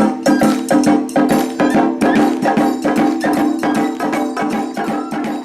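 Japanese taiko drum ensemble playing a fast rhythm of sharp strikes over a ringing drum pitch, gradually fading out.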